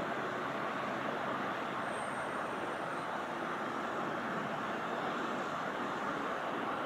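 Four-engined Airbus A380 airliner's Rolls-Royce Trent 900 jet engines passing overhead: a steady, even rushing jet noise with no change in level.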